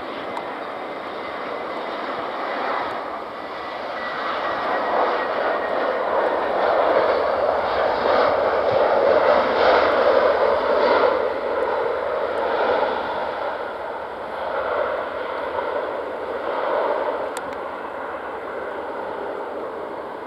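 Jet airliner engines roaring as a Jet2 Airbus A321 touches down and rolls out on the runway. The roar builds to a peak in the middle and then eases off.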